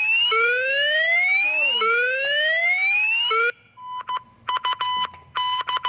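Electronic emergency-alert siren: repeated rising sweeps about a second and a half each, which cut off suddenly about three and a half seconds in. A steady electronic alert tone follows, broken up into short choppy bursts.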